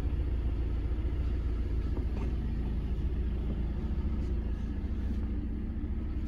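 A 2014 Ford Transit minibus's diesel engine idling steadily, heard from inside the passenger cabin as a low, even rumble.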